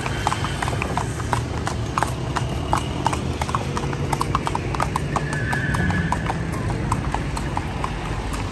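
Horse-drawn calèche: the horse's hooves clip-clopping on the street at a steady pace, about four strikes a second, over the low rumble of the carriage rolling. A brief high tone sounds just past halfway.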